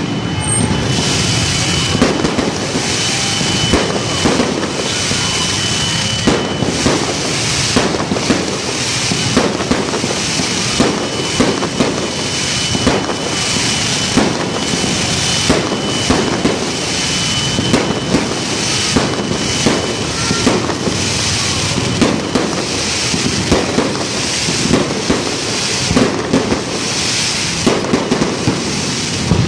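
Aerial fireworks bursting overhead in a continuous barrage: a rapid, uneven string of bangs with crackling and hiss between them.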